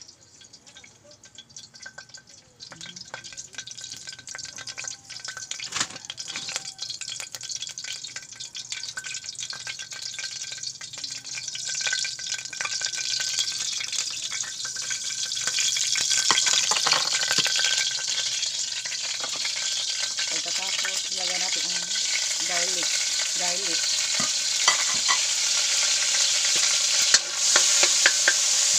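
Cooking oil sizzling in a frying pan on the stove, starting a few seconds in and growing steadily louder as it heats, with scattered light clicks of utensils.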